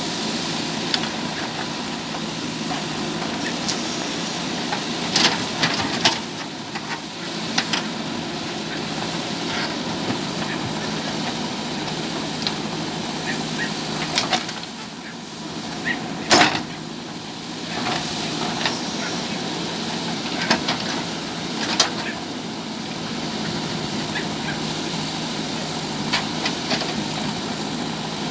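JCB 3DX backhoe loader's diesel engine running steadily while it digs, with scattered sharp knocks throughout, the loudest about sixteen seconds in.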